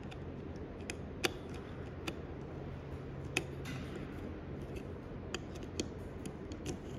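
About half a dozen small, scattered clicks and taps as a circuit-board adapter is handled and set onto a hard drive's PCB, the sharpest about a second in and again near the middle. A faint steady low hum lies underneath.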